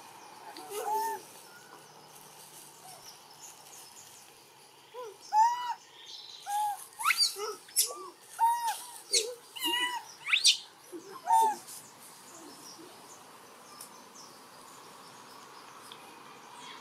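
Animal calls: a rapid run of short, arched calls, each rising and falling in pitch, many in quick succession from about five to eleven seconds in, with a few sharp upward squeaks among them.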